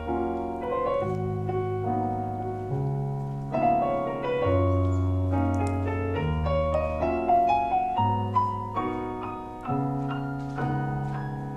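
Piano playing slow, gentle instrumental music: held bass notes change every second or two under chords and a higher melody, with no singing.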